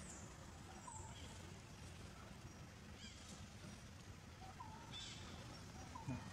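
Faint outdoor ambience with short, high chirping animal calls recurring about once a second.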